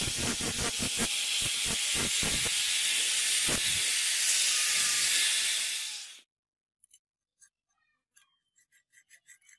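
Angle grinder disc grinding the steel edge of a meat cleaver: a loud steady hiss with a motor whine and irregular scraping knocks as the disc bites, stopping abruptly about six seconds in. After it, faint small clicks of a digital caliper being set against the blade.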